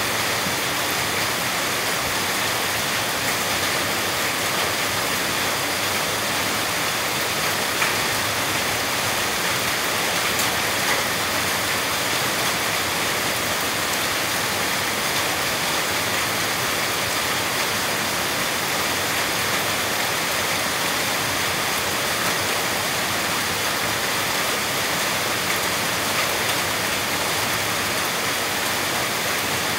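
Steady heavy rain, a continuous even hiss.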